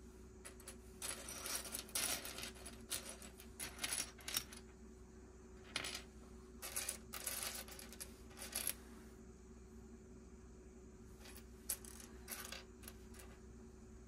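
Loose plastic Lego pieces clicking and clattering as they are handled, in three bunches of quick clicks with pauses between, over a steady low hum.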